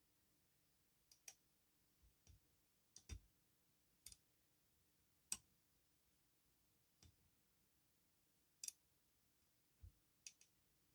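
Faint, scattered clicks from a lock pick working the pins inside a challenge lock with homemade pins, about one a second with short gaps.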